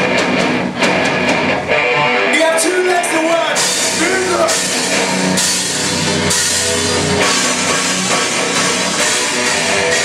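Rock band playing live on drum kit, electric guitars and bass, with cymbal crashes about once a second from about three and a half seconds in.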